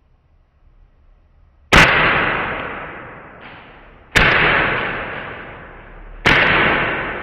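Taurus PT 24/7 G2 full-metal CO2 gas-blowback airsoft pistol firing three shots about two seconds apart, each a sharp crack as the gas fires and the slide cycles, dying away over the next couple of seconds.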